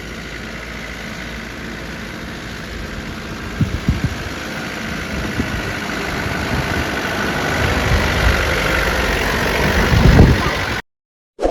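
Daihatsu Taft F50 four-wheel-drive engine running and growing steadily louder, with heavy low thumps about four seconds in and again near ten seconds, then the sound cuts off abruptly.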